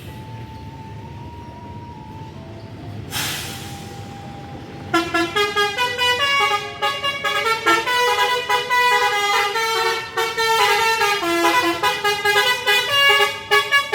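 Bus telolet horn playing a quick multi-note tune, starting about five seconds in and carrying on to the end. Before it there is a low idle rumble and a short hiss about three seconds in.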